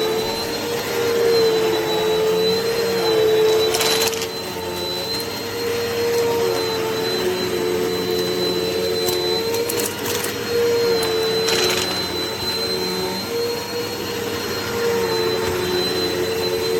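Upright vacuum cleaner running steadily, its motor whine wavering slightly in pitch, with three brief crackles of debris going up the hose.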